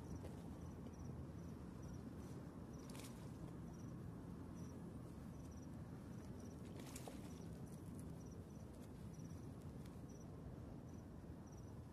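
Crickets chirping: short high chirps in twos and threes, repeating about every half second over a low, steady outdoor rumble, with two brief clicks about three and seven seconds in.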